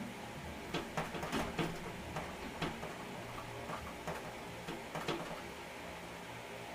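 Irregular light clicks and taps, a quick run of them in the first couple of seconds and a few more about five seconds in, over a steady hiss and low hum.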